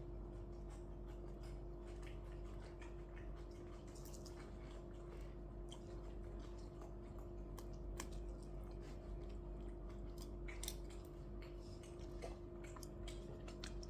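Quiet eating sounds: scattered light clicks and taps of utensils on dishes and containers, over a steady low hum.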